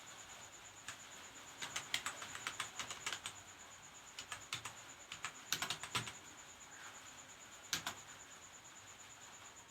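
Keys clicking on a computer keyboard during a typing speed test, in irregular flurries with short pauses between them, over a faint steady high-pitched whine.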